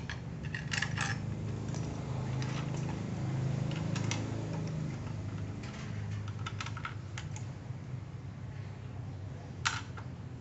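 Scattered light metal clicks and taps from steel drill-stand parts being handled and positioned, a loud click near the end, over a steady low hum.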